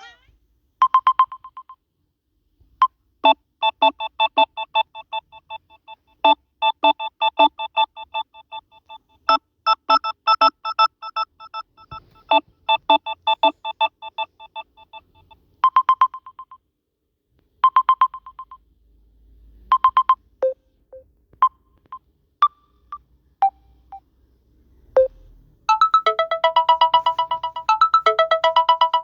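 Samsung Galaxy A21s ringtones playing one after another. First a brief tone, then a chiming electronic melody lasting about twelve seconds, then a run of sparse single notes. Near the end a faster, busier ringtone tune starts.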